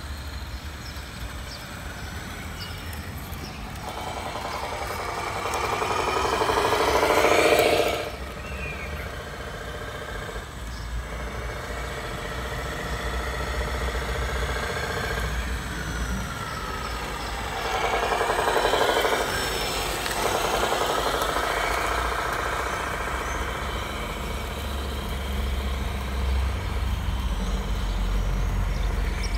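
Simulated diesel truck engine sound played through the onboard speakers of a 1/14 scale RC tractor truck's Arduino ESP32 sound controller, rising in pitch as the truck accelerates, twice. The first rise cuts off suddenly about eight seconds in.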